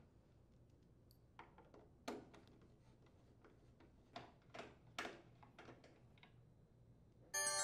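Faint scattered clicks and taps of a screwdriver and hands working screws and plastic parts loose from a washing machine's plastic control panel. A louder chime with several steady tones starts near the end.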